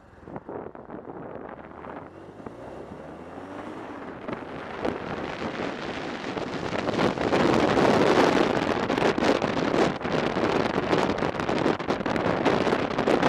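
Police motorcycle accelerating, its engine pitch rising in steps over the first few seconds, then wind buffeting the microphone, growing louder with speed and covering the engine.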